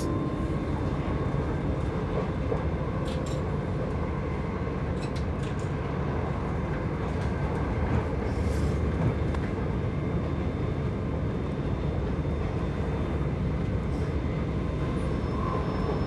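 Steady low rumble of a moving train carriage heard from inside, with a few faint clicks.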